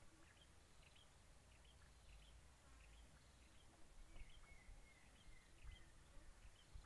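Near silence with faint, scattered short bird chirps, and about four seconds in a thin whistle that falls slightly and lasts about a second.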